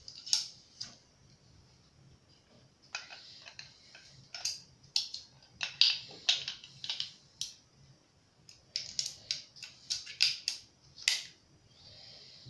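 Black-powder percussion revolver being reassembled by hand: metal parts clicking and scraping as the cylinder is fitted back into the frame and handled, with a quick run of clicks about nine to eleven seconds in.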